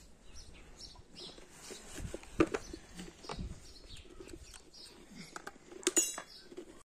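Tableware clinking and knocking at a meal, with one ringing clink about six seconds in; faint bird chirps in the background.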